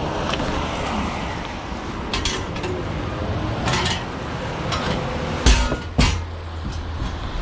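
Clanks and knocks of scrap being handled, ending in two heavy thumps about five and a half and six seconds in, over a steady rumble of wind on the microphone.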